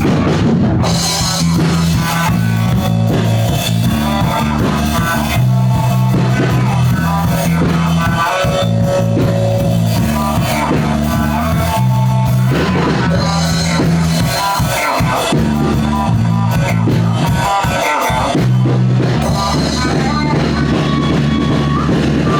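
Rock music without vocals: drum kit, electric guitar and a heavy bass line of notes changing about once a second, steady and loud throughout.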